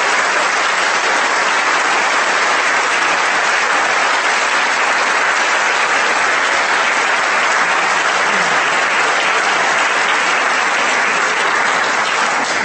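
Large audience applauding in a hall, a dense, steady clapping that begins to die away at the very end.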